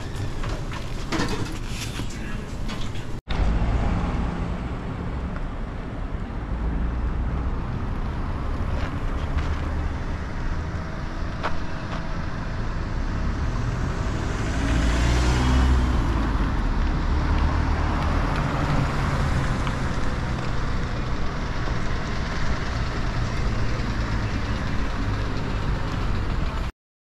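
Outdoor street traffic noise: a steady low rumble, with a vehicle passing about fifteen seconds in. The sound cuts off suddenly near the end.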